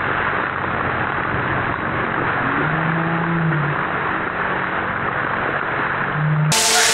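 Ice water pouring from a bucket and splashing over a seated person, slowed down so that it is a deep, muffled rushing, with a low drawn-out voice-like tone now and then. About six and a half seconds in it cuts abruptly to a brighter, steady hum of several tones.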